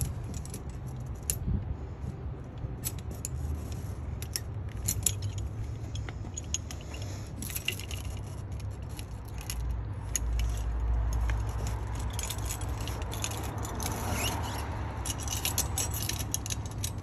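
Steel tire chain links clinking and rattling in irregular sharp clicks, with scraping, as the chain and spring tensioner legs are handled and a lever load binder is hooked on to tighten them.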